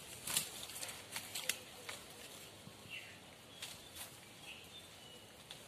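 Leaves and twigs rustling, with sharp snaps and clicks, as fruit is picked by hand among the branches of a tree. A bird chirps briefly a few times about halfway through.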